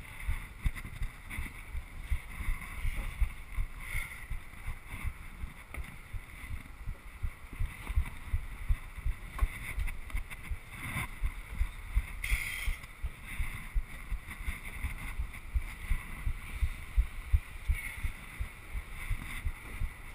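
Irregular low thumps and rumble on a GoPro's microphone, several a second, over a steady hiss.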